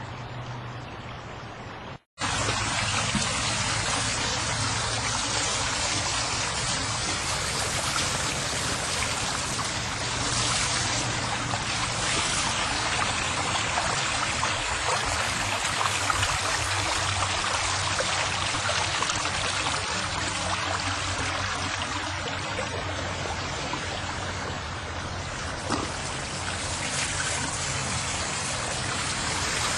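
Steady hiss of running water. About two seconds in the sound drops out for a moment and comes back louder.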